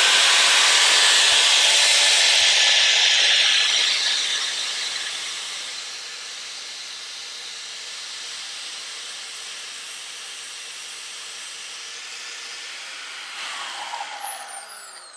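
Die grinder with a cutoff wheel grinding down the edge of a small dental mirror, a loud hissing grind for the first four seconds or so. It then runs on more quietly and steadily, and near the end it winds down with falling pitch.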